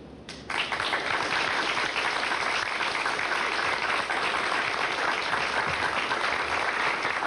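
An audience applauding, starting about half a second in after a brief lull and keeping on at an even level.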